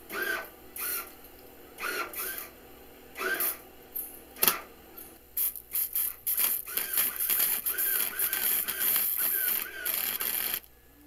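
Electric arc welder tack-welding a steel nut to a barbecue-grill-grate trigger pan: a few short crackling arc strikes, then from about halfway a steadier sputtering crackle that stops just before the end.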